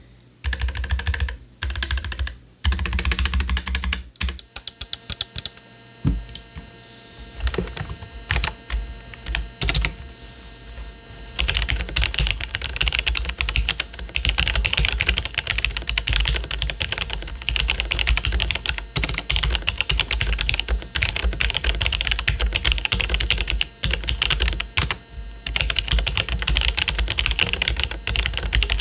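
Typing on a mechanical keyboard. The first few seconds are a Keychron K3 Pro with Gateron low-profile red switches. After a brief pause it is a Logitech G810 with Romer-G tactile switches and stock keycaps: scattered keystrokes at first, then fast, steady typing through the second half.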